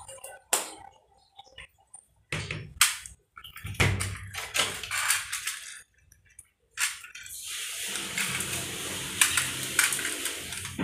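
Plastic toy truck handled and pushed on a tile floor: scattered knocks and brief scrapes in the first part, then its wheels rolling along the tiles in a steady rumble from about eight seconds in.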